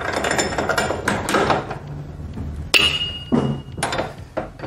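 Metal clanks and clinks of a steering-head bearing race installer tool being fitted through a motorcycle's steering head: a string of irregular knocks, one near three seconds in ringing briefly.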